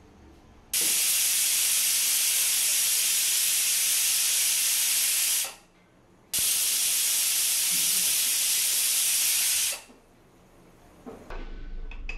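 Aluminium pressure cooker venting steam through its weight valve in two long hissing blasts of about four seconds each. Each blast starts and stops abruptly. This is the cooker's whistle, the sign that it has come up to pressure. A few faint knocks of handling follow near the end.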